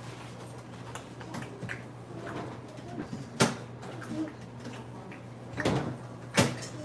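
A few sharp knocks and clicks from handling things at the kitchen counter, one about three and a half seconds in and two close together near the end, over a low steady hum.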